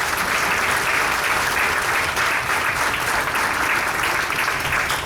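Dinner audience applauding steadily: a dense patter of many hands clapping.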